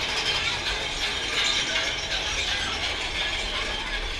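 Mine-train roller coaster being hauled up a chain lift hill, the lift chain and anti-rollback ratchet clattering in a rapid, steady run of clicks.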